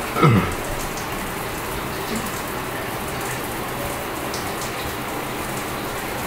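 Shower running: a steady spray of water hissing in a small enclosure. Just after the start, a brief louder sound falls in pitch.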